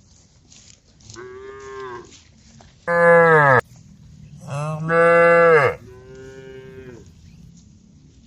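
Cows mooing, four calls in a row. The two middle moos are much louder, and their pitch drops off at the end.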